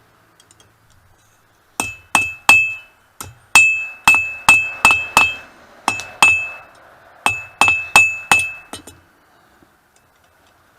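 Blacksmith's hammer striking hot mild steel on an anvil, each blow ringing with a bright ping. The blows come in quick runs of two to six, starting about two seconds in and stopping a second or two before the end, as the bar is drawn out to a point.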